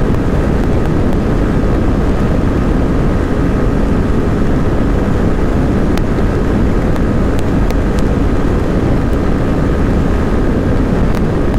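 Suzuki V-Strom SX 250's single-cylinder engine running flat out in sixth gear at a steady top speed of about 135 km/h, under heavy wind rush on the microphone from a strong headwind.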